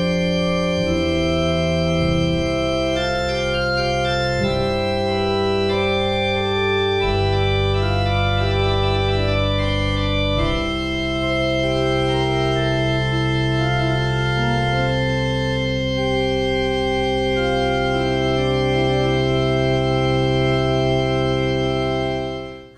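Organ played on a two-manual console: slow, sustained chords over deep held bass notes that change every few seconds, fading out near the end.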